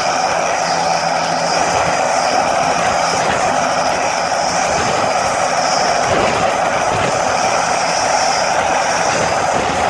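Bell 206B JetRanger III helicopter's turboshaft engine and two-blade rotor running steadily, loud and even, with a high turbine whine that wavers slightly over the noise of the rotor.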